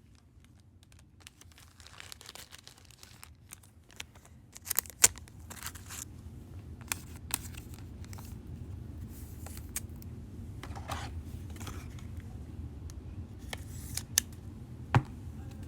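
Trading cards and their plastic packaging handled on a table: rustling and crinkling with a few sharp clicks and taps, the loudest about five seconds in and near the end, over a low steady hum.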